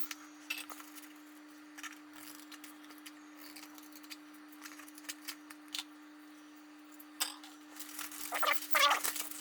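A steady low hum with faint, scattered clicks and snips of scissors cutting a small piece of fiberglass-reinforced membrane, the clicks coming thicker near the end.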